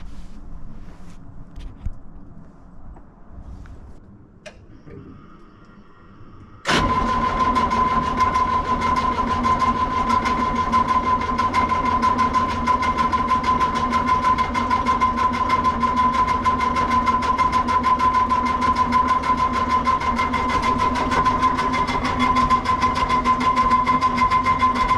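Excavator's diesel engine being cranked by its electric starter. The starter kicks in suddenly about seven seconds in and cranks steadily with a whine and a fast, even churn, but the engine never fires.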